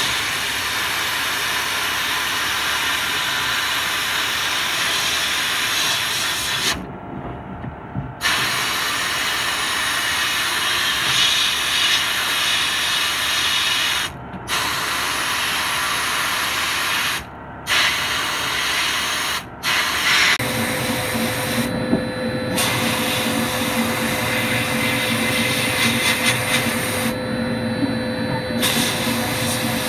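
Sandblast cabinet gun blasting abrasive onto rusty steel toy parts: a loud steady hiss that stops briefly several times and starts again. About two-thirds through, a motor starts and keeps running with a steady hum under the hiss.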